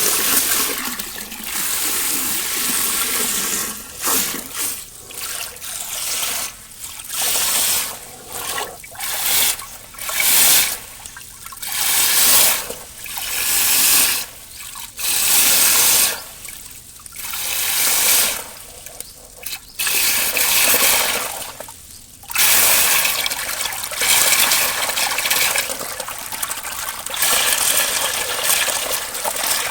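Water rippling and sloshing, steady at first, then surging and falling away in repeated swells about once a second before settling back into a steady rush near the end.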